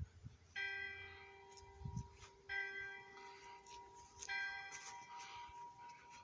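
Church bell striking three times, about two seconds apart, each strike left ringing and slowly fading.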